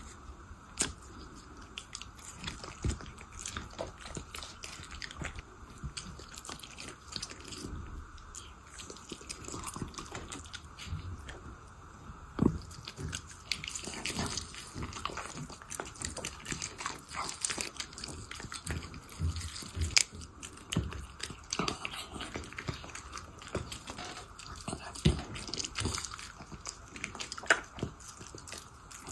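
A puppy eating, chewing and biting at its food with an irregular run of wet smacks and clicks.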